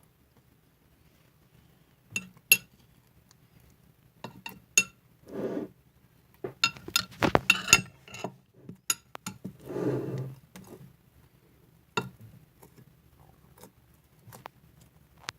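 Kitchen utensils and dishes clinking and tapping during baking preparation: scattered sharp clicks, a quick cluster of clinks about halfway through, and two short softer scraping sounds around the middle.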